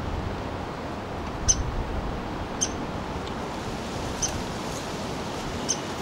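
Female downy woodpecker giving short, sharp peeps from inside a wooden nest box, four of them a second or so apart. These are her quieter, slightly quicker calls on going in to roost for the night.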